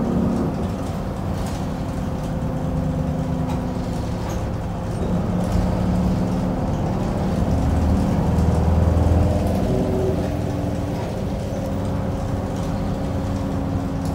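Isuzu Erga city bus driving, heard inside the passenger cabin. The diesel engine's note steps up and down in pitch several times as it changes gear, and it is loudest about eight to nine seconds in. A faint steady whine runs underneath.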